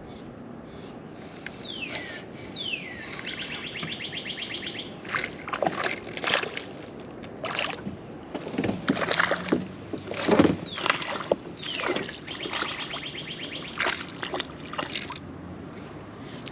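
Paddle strokes splashing and water sloshing around a kayak, irregular, loudest about ten seconds in. A songbird sings twice: falling whistles followed by a fast trill.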